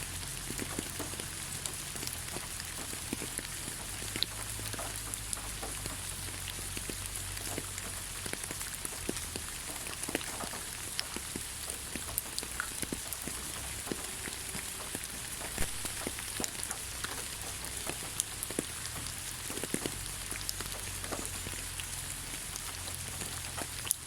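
Rain falling on the ground, a steady hiss with many scattered drop splashes and ticks.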